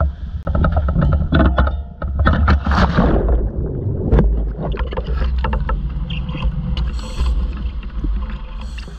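Water splashing as a scuba diver plunges into the sea, then a muffled underwater rush and rumble with bubbling, heard through a camera housing under the surface. The sound is choppy at first, with a loud surge of bubbles about three seconds in, and then grows steadier and slowly fainter.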